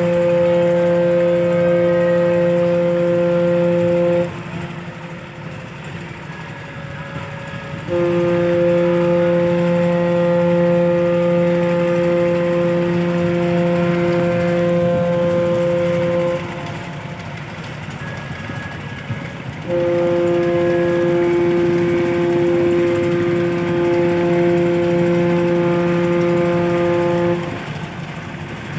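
Ship's horn of the passenger liner KM Bukit Raya giving long, deep, steady blasts: one ends about four seconds in, then two more of about eight seconds each follow with short gaps. These are the third whistle signal that the ship is ready to leave the pier. Between blasts a steady engine hum carries on underneath.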